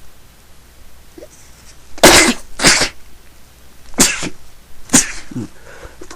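A person sneezing in a fit, four sharp, loud sneezes in quick succession starting about two seconds in.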